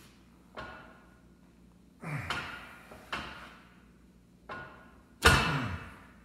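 A series of metal-on-metal clunks, each with a short ringing tail, at irregular intervals, the loudest near the end: the locker carrier and its bearings being worked into the Dana 30 differential housing.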